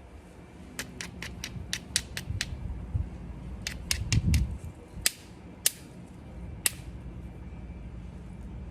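Obsidian being knapped: sharp, glassy clicks as flakes come off the stone, first in a quick run of about seven, then four more, then three louder single clicks spaced apart. A brief low rumble of handling comes about four seconds in.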